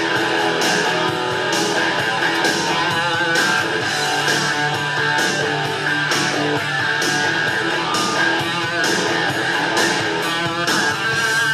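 Guitar-led rock music with a steady beat, played back from a record on a Technics SL-QD22 turntable.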